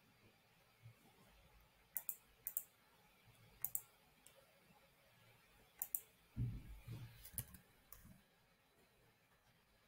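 Computer mouse clicks: short sharp clicks, mostly in close pairs, coming about half a dozen times, with a soft low bump about six and a half seconds in.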